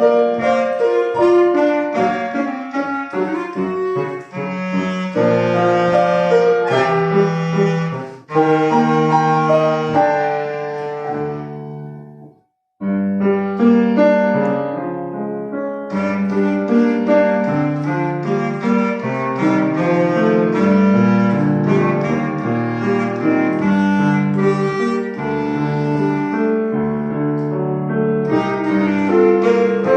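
Solo wind instrument playing a melody with piano accompaniment. About twelve seconds in the music fades to a brief silence, the piano starts again alone, and the solo instrument comes back in a few seconds later.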